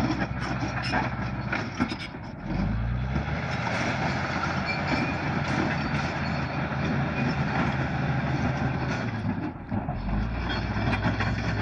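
Bulldozer's diesel engine running under load, with knocks and clanks in the first couple of seconds. About two and a half seconds in it revs up and then runs on steadily.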